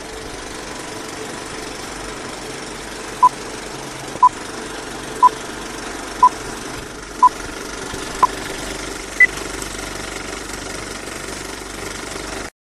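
Old-film countdown leader sound effect: a steady film-projector rattle with crackle, and a short beep once a second, six times, then a single higher beep. The sound stops abruptly near the end.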